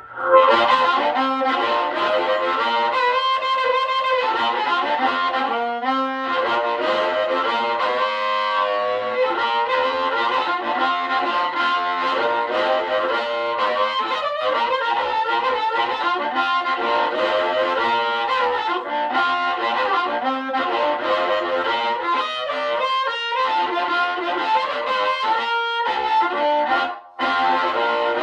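Amplified blues harmonica played through a green bullet microphone with a black CR element into a Kalamazoo Model 2 amp, the tone breaking up into overdrive. The playing runs on continuously, with one short pause near the end.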